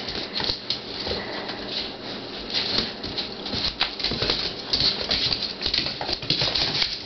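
Pit bull puppies scrambling and wrestling on a tiled floor: a busy run of claws clicking and paws skittering, with small scuffles.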